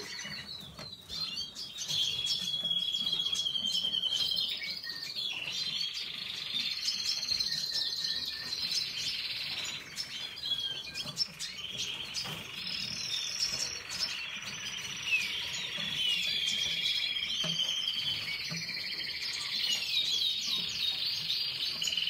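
Domestic canary singing: a long, unbroken run of rapid high trills and warbled phrases, each trill held for a second or two before switching to the next.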